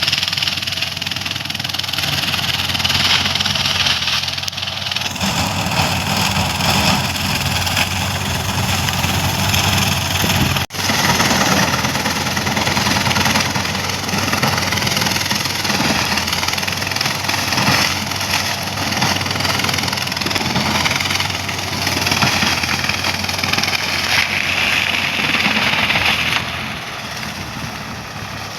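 Swaraj 744 FE tractor's three-cylinder diesel engine running steadily under a dense mechanical hiss. The sound cuts out for an instant about a third of the way in and gets somewhat quieter near the end.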